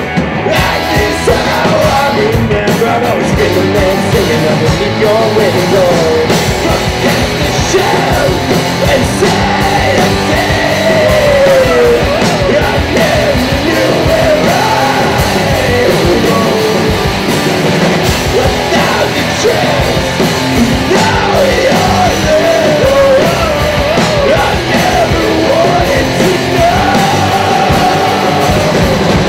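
Live rock band playing loudly: a man sings over two electric guitars and a drum kit.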